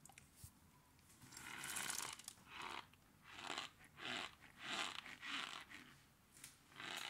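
Packed cornstarch crunching and squeaking in a run of short bursts, roughly one every half second to second, starting about a second in.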